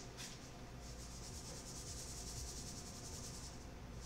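A hand-twisted spice grinder grinding seasoning into the soup: a faint, fast, gritty rasp that runs for about three seconds and stops shortly before the end.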